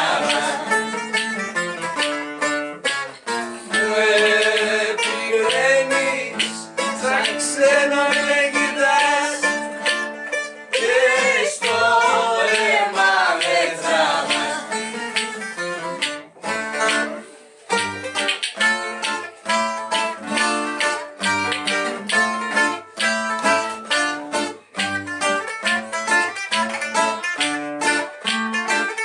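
Live rembetiko played on bouzouki and acoustic guitar, with a woman singing the melody for about the first half. From just past the middle the voice drops out and the bouzouki and guitar carry on in a busy, rhythmic instrumental passage of quick plucked notes.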